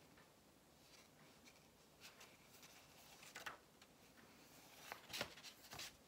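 Pages of a thick paperback book being riffled by hand: faint, short papery flicks and rustles that start about two seconds in and grow denser and louder, the loudest near the end.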